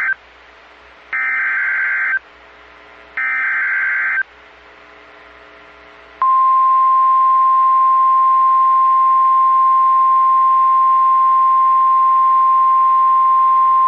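NOAA Weather Radio alert start: the tail of one SAME header data burst and two more harsh, screeching one-second bursts about a second apart, which encode the coming alert. About six seconds in, the single-pitch weather radio warning alarm tone begins and holds steady, the signal that a warning message follows.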